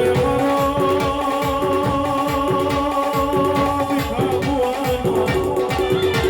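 Live Gujarati folk devotional music in an instrumental passage: a melody in held, stepping notes over a fast, dense drum beat.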